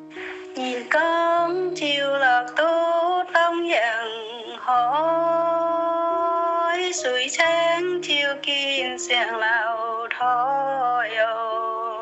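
A solo voice singing a slow song, with wavering held notes, one held long near the middle, over a steady sustained accompaniment.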